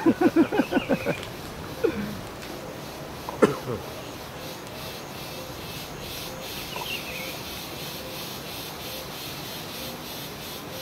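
Insects trilling steadily in the background. A short, rapid run of pulsed calls comes in the first second, and a single sharp call falling in pitch comes about three and a half seconds in.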